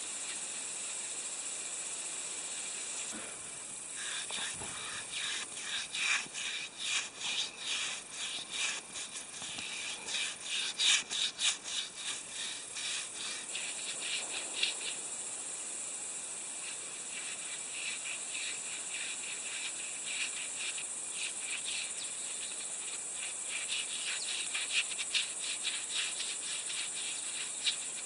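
A paintbrush scrubbing wood preservative onto sawn timber beams in quick back-and-forth strokes, about two a second, in two spells. Under it runs a steady high hiss.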